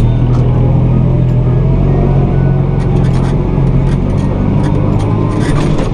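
A motor vehicle's engine running steadily with a low hum, with some light clicks and rattles in the second half.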